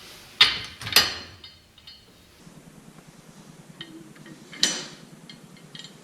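Steel mounting bar clanking against metal as it is fitted onto the lift arms: two loud clanks about half a second apart near the start, light clinks after, and another clank near five seconds in.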